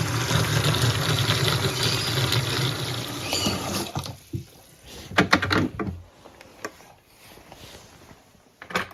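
Water pouring from a bucket into a container, a loud steady rush for about four seconds, followed by a few knocks and clatters.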